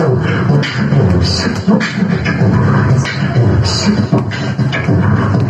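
A man's voice performing loudly into a microphone over a hall's PA system, continuous, with sharp percussive mouth sounds mixed in.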